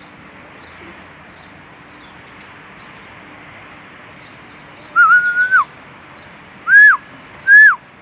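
Loud whistled calls: one held whistle about five seconds in that drops off at its end, then two short rising-and-falling whistles near the end. Faint bird chirping sits underneath.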